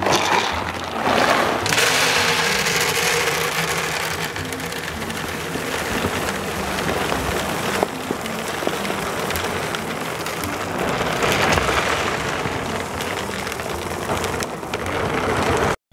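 Dry dog kibble pouring from a large bag into a plastic storage bin, a steady rain-like rattling rush that stops suddenly near the end.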